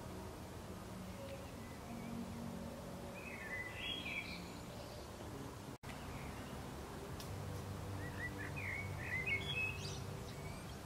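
Outdoor background with a low steady rumble and small birds chirping in short, quick phrases, once about three seconds in and again in a longer run near the end. A brief dropout about halfway through.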